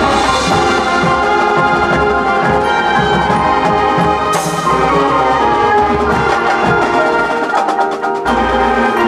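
High school marching band playing, brass and percussion together, with a sudden crash a little over four seconds in and a run of quick drum strokes near the end.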